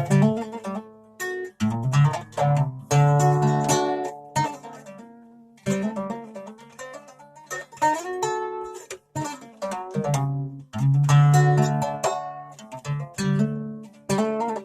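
Acoustic plucked string instrument played solo: bursts of strummed chords and picked notes that ring out and fade, broken by short pauses.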